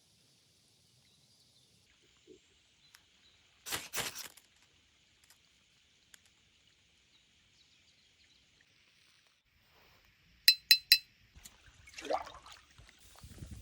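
A couple of dull knocks about four seconds in, then three quick, bright clinks of a glass jar being struck about ten seconds in, followed by a short sliding scrape.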